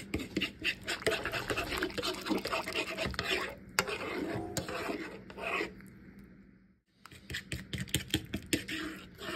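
Gravy being stirred in a pan, a utensil scraping across the pan with quick, irregular strokes as the gravy thickens. The stirring stops briefly about two-thirds of the way through, then resumes.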